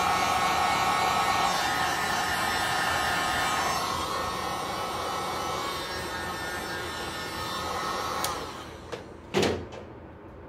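Heat gun blowing hot air into a cup of epoxy resin to warm and thin it, running steadily, then switched off about eight seconds in and winding down. A single knock follows about a second later.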